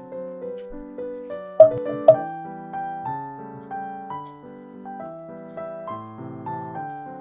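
Background piano music: a melody of single notes over soft chords. Two sharp knocks come about a second and a half and two seconds in.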